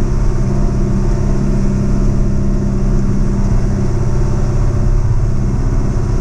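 Heavy-equipment diesel engine pulling a dirt scraper, running steadily under load with an even, fast firing pulse.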